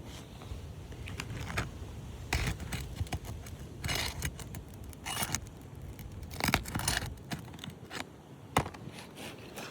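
Metal roofing snake scraping and prying under asphalt shingles to break their seal and reach the nails, in a series of short, irregular scrapes and clinks.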